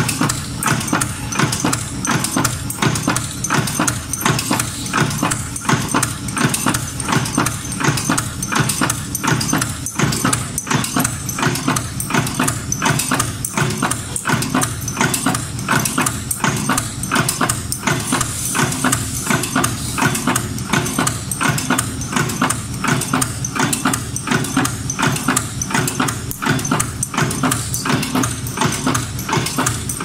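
Strapping-buckle making machine running, its press clacking in a rapid, steady rhythm over a constant mechanical hum.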